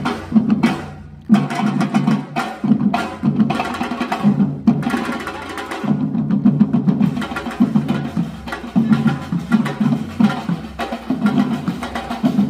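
Percussion ensemble drumming a fast, dense rhythm with wood-block-like hits, breaking off briefly about a second in and then coming back in together.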